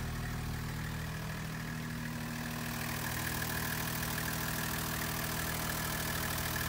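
Toyota 1HZ 4.2-litre straight-six diesel idling steadily in a Coaster bus, heard inside the cabin. About halfway through, a higher whine comes up over the engine's low running.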